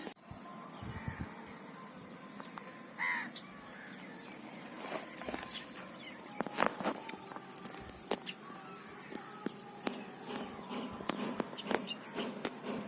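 Outdoor ambience of insects chirping steadily at a high pitch, with scattered faint clicks and rustles and a short chirping call about three seconds in.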